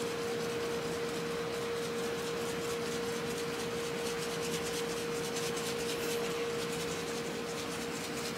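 Soft, repeated rustling and rubbing as dry rub is shaken onto raw ribs on a cutting board, over a steady hum with a light hiss.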